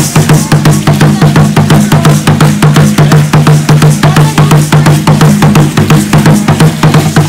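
Drumming for Aztec dance: a fast, steady beat of about five strokes a second, with a low ringing tone held underneath.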